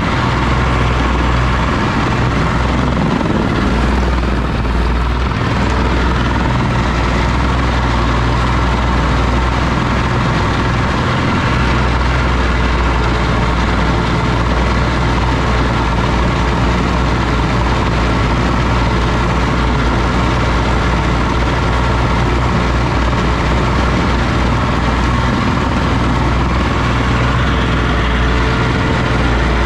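Oliver OC-6 crawler tractor's engine running steadily with a deep, even drone and no change in speed.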